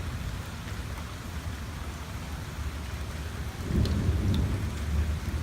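Thunderstorm: steady rain falling, with a low rumble of thunder building about two-thirds of the way in.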